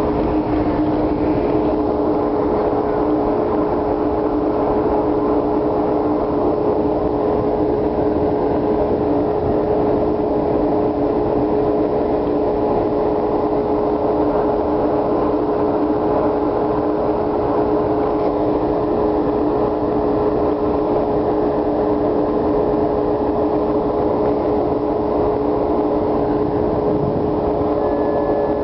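Alaska Marine Highway ferry under way, its engines and machinery giving a steady drone with two unchanging hum tones over a constant rushing noise.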